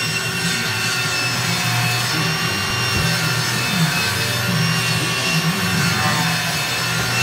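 Power woodworking tools cutting hardwood: a steady motor hum and whine with the rasp of a blade in the wood.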